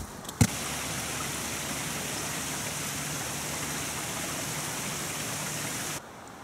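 Small mountain brook running over rocks: a steady rushing hiss. It starts just after a sharp click about half a second in and cuts off abruptly near the end.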